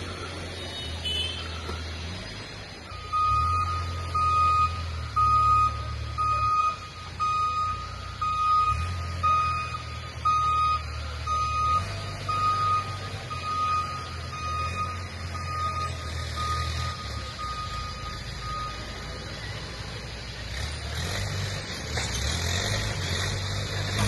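Single-tone electronic beeping, about three beeps every two seconds, fading out about three-quarters of the way through, over a low rumble. A hiss rises near the end.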